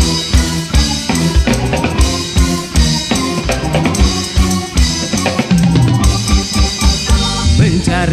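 Dangdut orchestra music played loud through a sound system: an instrumental passage driven by drums and percussion on a steady beat, with a wavering melodic line coming in near the end.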